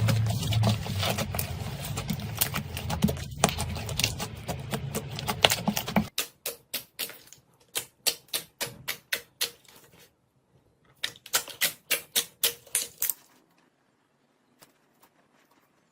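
Slime being worked by hand, giving rapid crackling and popping clicks. The clicks come densely for about six seconds, then in sparser runs with a short pause, and stop a few seconds before the end.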